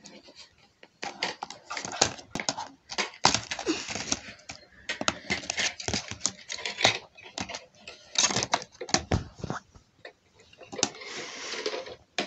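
Handling noise from a plastic DVD case being opened and a disc pressed off its centre hub: irregular clicks, snaps and rustles close to the microphone, with a longer scraping rustle near the end.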